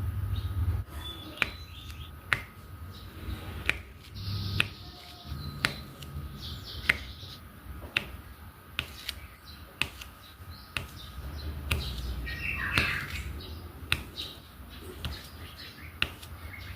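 Sharp clicks of a diamond painting pen pressing resin drills onto the sticky canvas, one about every half second to second, with a couple of brief rustles in between.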